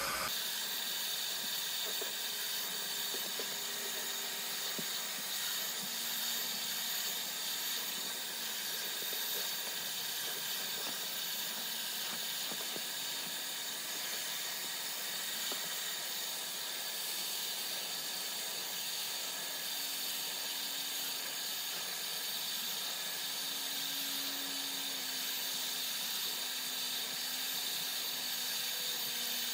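Shop vacuum running steadily: a continuous airy hiss that holds without a break.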